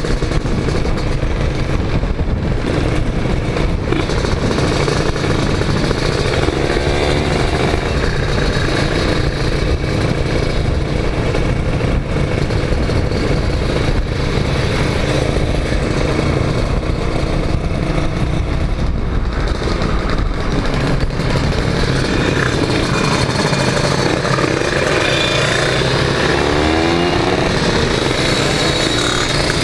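Kawasaki Ninja 150 two-stroke motorcycle engine running at riding speed, with other motorcycles of the group close by and wind rushing over the microphone. An engine note rises twice, about a quarter of the way in and near the end.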